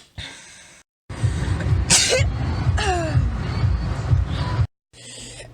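A person's sneeze, one sharp burst about two seconds in, over a steady low rumble. A short falling tone follows, and the sound drops out briefly about a second in and again near the end where short clips are cut together.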